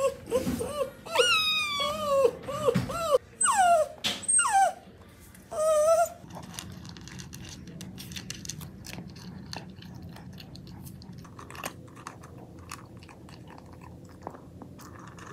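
A Bichon Frise whining and whimpering in a string of high, sliding cries for about the first six seconds. After that, a kitten crunching dry kibble from a bowl: quick, faint little clicks and chewing.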